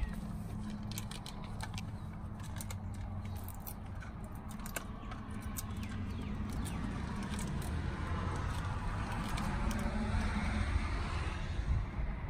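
Small clicks and crackles of a plastic gas-meter module and its clear cover being handled, over a steady low mechanical hum that swells from about eight seconds in.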